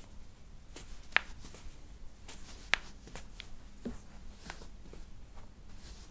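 Quiet rustling and handling on a treatment table, with a few sharp clicks, the two loudest about a second and a half apart.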